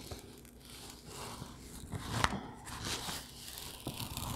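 Paper rustling and crinkling as a diamond painting canvas and its paper cover sheet are unrolled and pressed flat by hand, with a sharp crackle about two seconds in.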